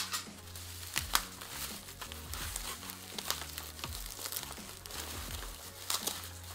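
Plastic bubble wrap crinkling and tearing as it is pulled off a package by hand, with scattered sharp crackles. Background music with a steady bass line plays underneath.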